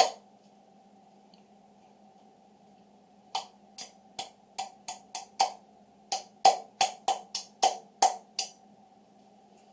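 Hammer tapping the two trigger-group retaining pins back into a Remington 870 shotgun's receiver: one sharp tap, a pause of about three seconds, then about fifteen quick taps at two or three a second, over a faint steady hum.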